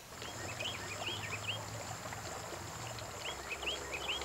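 Garden ambience: small birds giving many short, rising chirps in scattered bursts over a steady hiss of water trickling from a garden fountain.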